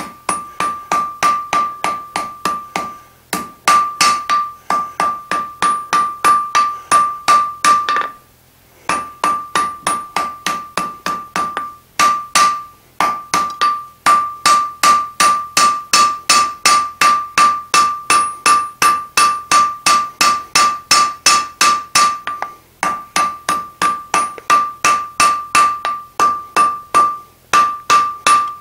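Blacksmith's hand hammer striking a red-hot steel bar on an anvil at about three blows a second, each blow ringing the anvil with a clear high tone, as the hot bar is smoothed and drawn out. The hammering stops briefly a few times.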